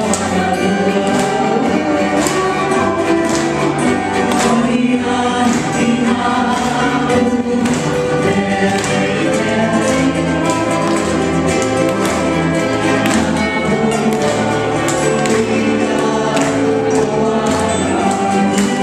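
Live Hawaiian band music with singing, a low bass line stepping from note to note under the voices.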